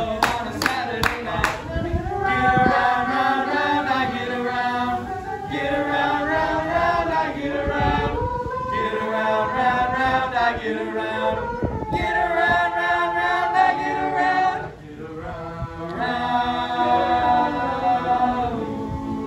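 A cappella group of teenage boys singing in harmony, held chords in phrases broken by short pauses. A few sharp clicks sound in the first second or so.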